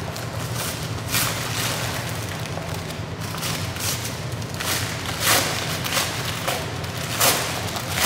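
Brown packing paper being torn and peeled off exhaust mufflers, rustling and ripping in several short bursts, the loudest about five and seven seconds in, over a steady low hum.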